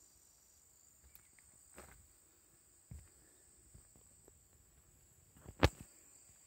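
Footsteps on weathered wooden deck boards: a few soft knocks, then one sharp thump about five and a half seconds in. Insects buzz steadily at a high pitch throughout.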